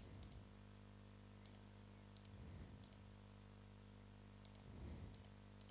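Faint computer mouse clicks, each a quick double tick of press and release, about seven times, over a steady low electrical hum, with a couple of soft low bumps between them.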